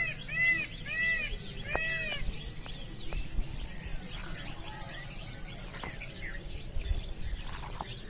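Birds calling: a run of repeated arched, ringing notes, about two a second, fades out after two seconds or so. Scattered short chirps and thin high notes follow, over a steady low rumble.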